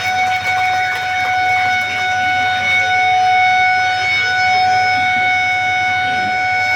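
Siren sounding one long, loud, steady tone at a constant pitch: the ceremonial siren signalling the official opening.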